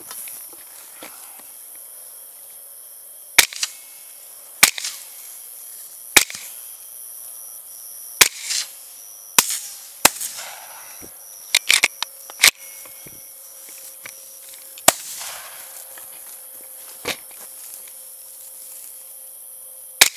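A volley of rifle shots at running feral hogs: about a dozen sharp cracks at irregular intervals, several coming in quick succession near the middle.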